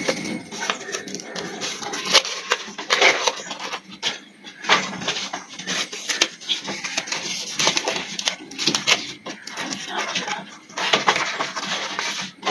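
Fresh edana (wild cinnamon) leaves being crumpled and pushed hard into the mouths of green bamboo tubes to seal them, giving an irregular crackling and rustling.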